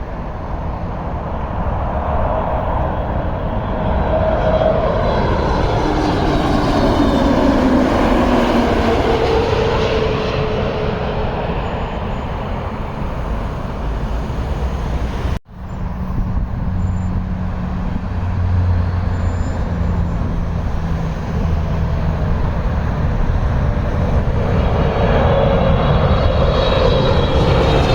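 Jet airliner on final approach passing by, its engine whine sliding down in pitch as it goes past, over a steady low rumble. There is a sudden break about halfway through, then the next jet's engine noise grows louder near the end.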